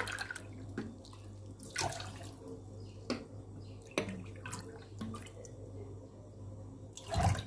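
Water poured from a drinking glass into a stainless steel pot of sugar, glassful after glassful, with a few light knocks between pours and a louder splash near the end.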